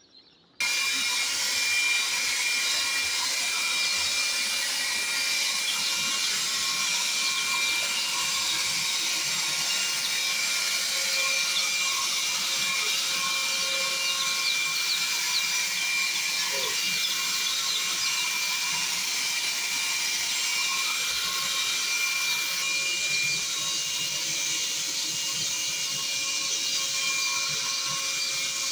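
A large mass of Goliath chicks peeping all together, a dense and steady high-pitched chorus.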